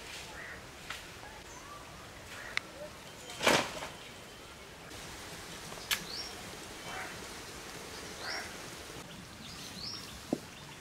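Birds chirping now and then in the background, with a few sharp clicks and clinks as metal bowls and pans are handled at an outdoor clay stove. A brief, louder noisy swish about three and a half seconds in is the loudest sound.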